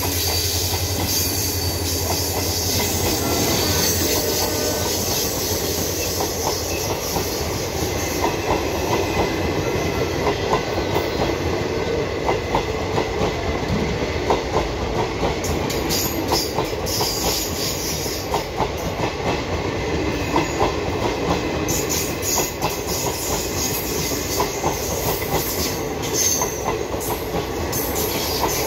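Passenger coaches of an Indian Railways express passing at speed with a continuous rolling rumble. Their steel wheels clatter over rail joints in rapid clickety-clack that grows busier about a third of the way in.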